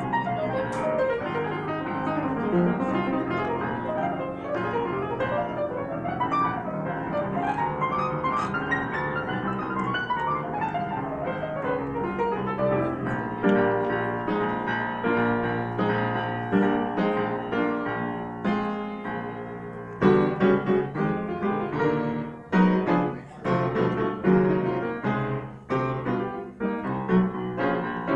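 Solo jazz piano: quick runs sweeping up and down the keyboard, then held chords, and from about two-thirds of the way in, short punchy chords with brief gaps between them.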